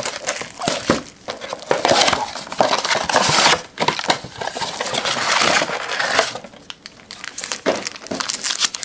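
Packaging of a retail trading-card box being torn open and crinkled by hand: irregular rustling and crackling with short lulls.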